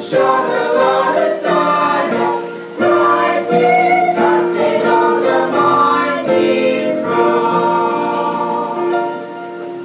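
Small mixed choir of men's and women's voices singing a hymn together, with long held notes near the end.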